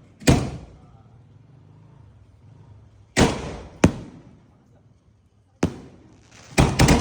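Firework shells bursting in a series of sharp bangs, each with a short fading tail. There is one near the start, two a little after three seconds in, one more later, and a rapid cluster of three near the end.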